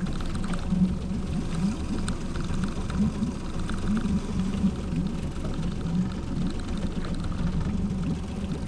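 Steady low rumble and hum of a small fishing boat moving slowly, with faint small clicks here and there.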